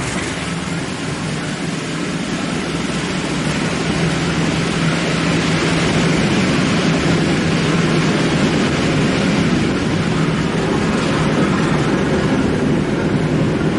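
Train passing at speed: a steady rushing rumble of wheels on rails with a low engine drone, growing a little louder about four seconds in.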